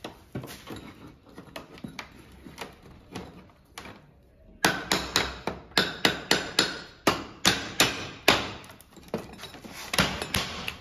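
Hammer blows on a wooden packing crate as it is knocked open: a few quieter knocks at first, then from about halfway a fast run of loud, sharp strikes, roughly three a second.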